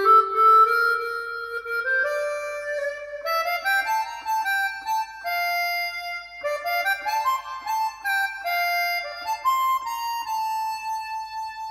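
Music track played back through an Icon Audio MFV 3 Super floorstanding speaker: a solo reed-like melody in two-note harmony that steps upward in pitch and ends on a long held note.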